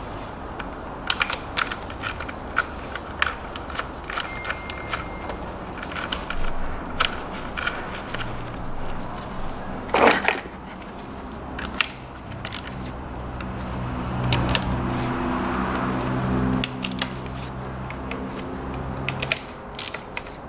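Metal hand tools clicking and clinking as the ignition coil bolts are turned down with a small wrench, with a louder metal knock about halfway through. A steady low hum runs under it from a little before the middle until near the end.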